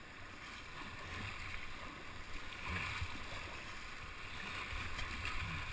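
Shallow river water rushing and splashing around a kayak's hull as it is paddled through a riffle.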